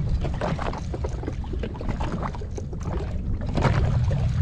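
Wind buffeting the microphone and choppy water slapping against a small personal watercraft's hull at sea, a steady low rumble with scattered small knocks and splashes.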